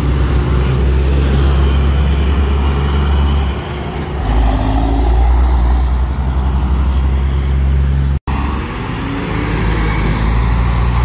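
Semi-truck diesel engines rumbling as the trucks pull through an intersection, with car traffic mixed in. The sound cuts out for an instant about eight seconds in.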